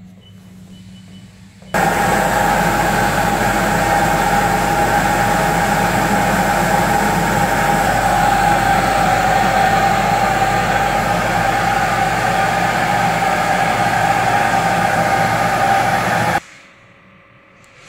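A PG-80T cryogenic deflashing machine running in its automatic cycle: a steady, loud mechanical whirring with a constant whine. It starts suddenly about two seconds in and stops suddenly near the end.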